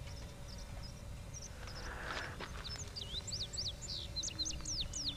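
Songbird chirping: a quick run of high, rising and falling whistled notes starting about a third of the way in, over a low steady outdoor rumble. Beneath them, a faint steady wail of a distant tornado siren.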